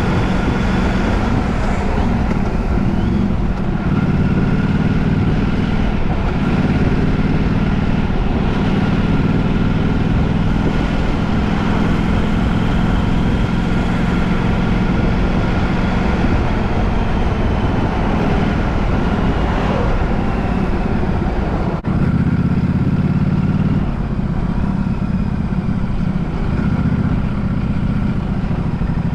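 A motor vehicle on the move: steady engine drone and road noise, its pitch and load stepping up and down a few times, with a brief dip in level about 22 seconds in.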